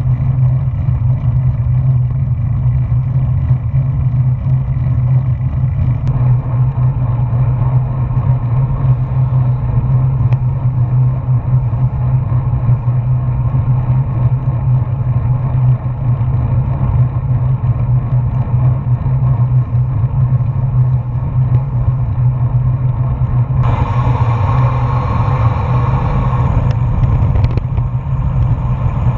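Wind and tyre noise on a bicycle-mounted GoPro during a fast road descent: a loud, steady rumble. A brighter hiss joins for a few seconds near the end.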